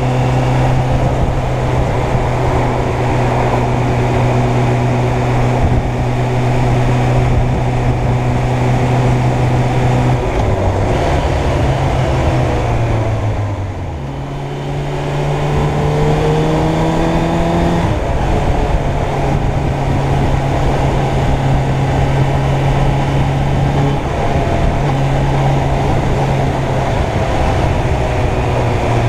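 Suzuki Bandit 600's inline-four engine running under way at a steady pace. About a third of the way in its note falls and fades as the bike slows. It then rises again as the bike accelerates and settles back to a steady note.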